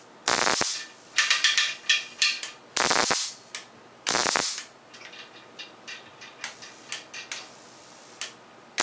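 Home-built Tesla coil's spark gap firing in short, harsh crackling bursts as the coil is switched on and off. Several loud bursts come in the first four and a half seconds, followed by fainter scattered snaps.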